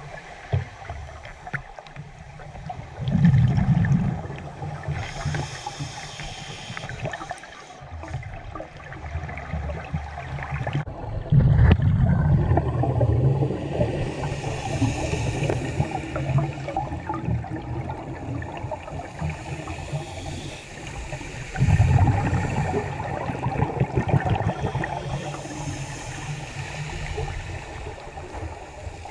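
Scuba diver's regulator breathing, heard underwater through a camera housing: exhaled bubbles rush out in three loud bursts about nine seconds apart, with a softer hiss of inhaling between them.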